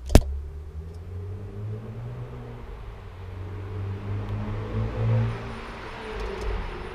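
A single sharp knock right at the start, then the low rumble of a passing road vehicle that swells to its loudest about five seconds in.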